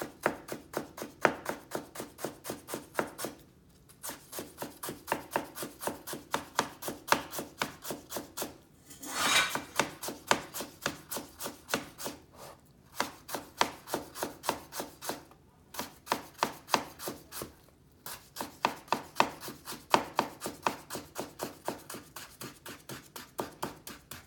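Chef's knife slicing peeled ginger into very thin strips on a cutting board: quick, even chopping strokes about four to five a second, with a few brief pauses. There is one longer scraping sound about nine seconds in.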